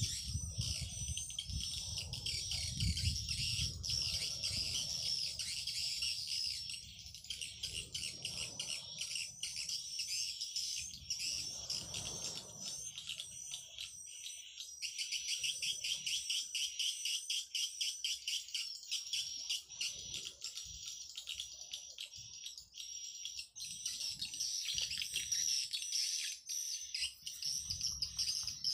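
Swiftlet call recording used to lure swiftlets into a bird house: a dense, continuous high twittering of many swiftlets with rapid clicking trills.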